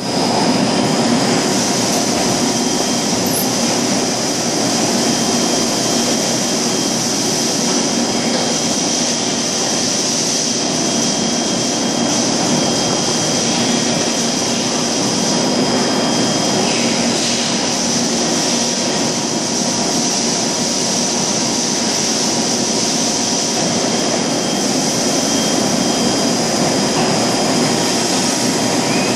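Plastic-drum blow moulding machine running: a loud, steady hum and hiss with a few steady high tones.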